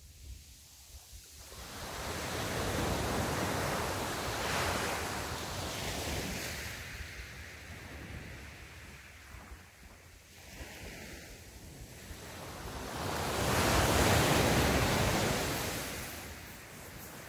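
Small sea waves breaking and washing up the beach, swelling twice: a long surge from about two seconds in and a louder one about thirteen seconds in.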